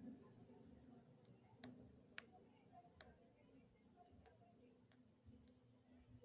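Near silence broken by about five faint, sharp clicks, spaced roughly a second apart.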